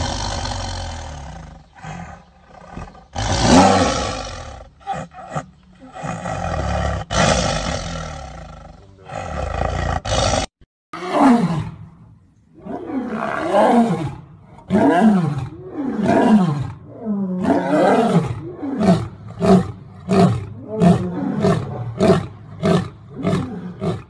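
A tiger snarls and growls over its meat. About ten seconds in, after a break, a male lion roars: a few long, deep roars falling in pitch, then a run of shorter grunts that come faster and faster.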